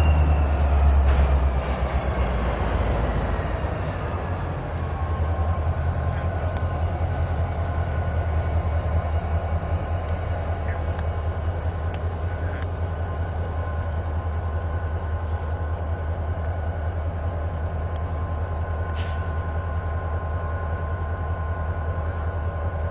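Canadian Pacific EMD SD40-2 diesel locomotive, with its 16-cylinder EMD 645 engine, rolling slowly toward the listener with a steady low engine rumble. Over the first five seconds a high whine falls in pitch, then it holds steady above the rumble.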